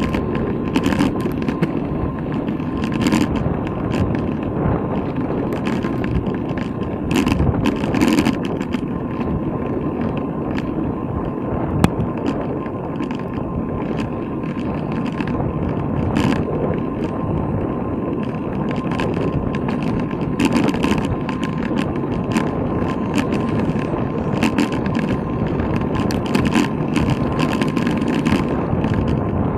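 Riding noise from a bicycle-mounted black-box camera: steady tyre rumble and wind on the microphone, with frequent rattles and clicks from the bike and its mount, and one sharp knock about twelve seconds in.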